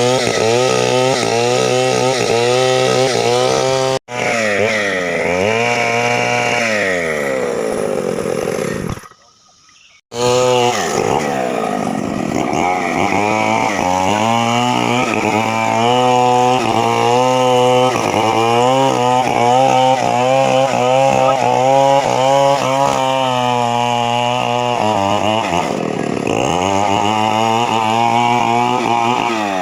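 Chainsaw running hard, its engine pitch repeatedly dipping and recovering as it works through wood. Partway through it winds down, the sound drops out for about a second, then it runs and cuts again.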